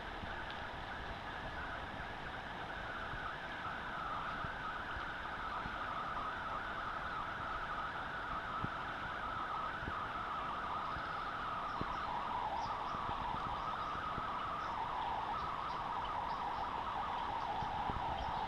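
Steady rush of flowing river water, slowly growing a little louder and lower in pitch.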